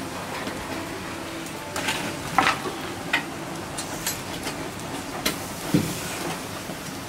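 Wood fire burning hard in a brick firebox: a steady rushing hiss with sharp crackles and pops, the loudest about two and a half and six seconds in.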